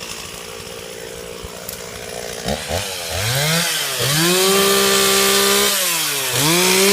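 Two-stroke chainsaw running low for the first couple of seconds, then revved up about two and a half seconds in. It is held at high speed, let off briefly near the six-second mark and revved up again.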